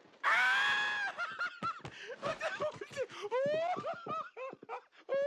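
A cartoon character laughing hard: a long held note opens it, then a rapid run of short, repeated laughs, many rising in pitch.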